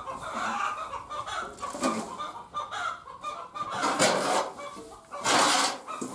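Chickens clucking in the coop while a shovel scrapes up old wood-shaving bedding and tips it into a metal wheelbarrow, with two louder scraping, rustling rushes in the second half.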